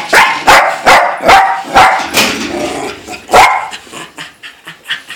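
A dog barking in a quick series of sharp barks, about one every half second, for the first two seconds or so. After a short lull there is one more loud bark about three and a half seconds in.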